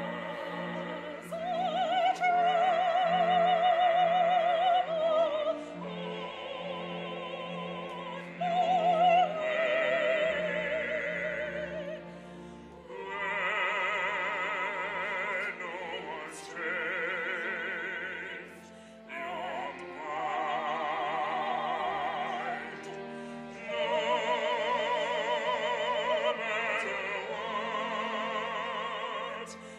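Operatic singing with wide vibrato: held notes in phrases of a few seconds with short breaks between them, over a steady instrumental accompaniment.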